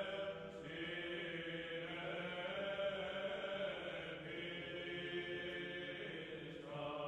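Quiet background music of sustained chant-like voices, the held chord shifting a few times.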